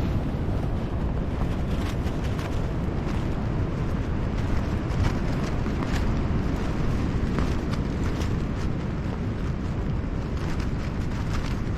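Strong gusty wind buffeting the microphone: a steady low rumble.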